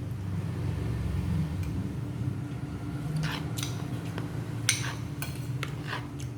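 Cutlery clinking against dishes a few times in the second half, over a steady low hum.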